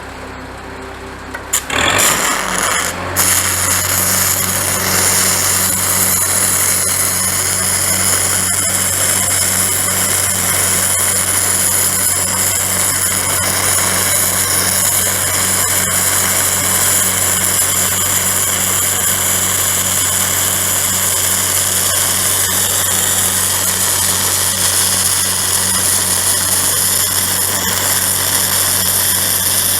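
Stick welding arc with a 7018 rod, crackling steadily after it is struck about two seconds in, over an engine-driven welder running under load.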